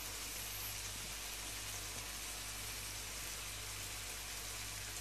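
Spiced chicken pieces frying in a nonstick pan, a steady soft sizzle with no stirring, over a low steady hum.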